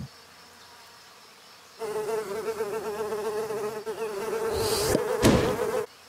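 Cartoon sound effect of a fly buzzing: a wavering, steady-pitched drone that starts about two seconds in. A short hiss and a sharp click come about five seconds in.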